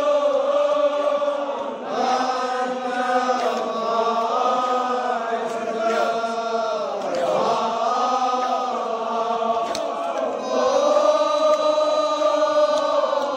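A group of men chanting a Kashmiri marsiya together in long, drawn-out sung phrases that rise and fall, with a short break between phrases about two seconds in and again near the end.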